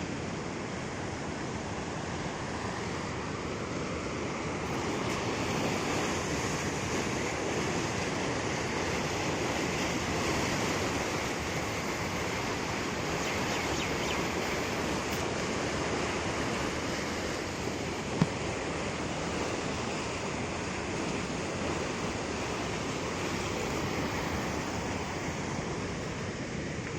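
A river running high in flood, its water rushing steadily, with one short click about eighteen seconds in.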